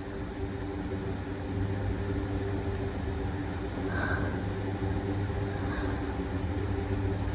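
A steady low mechanical hum with an even hiss over it, and two faint short higher sounds about four and six seconds in.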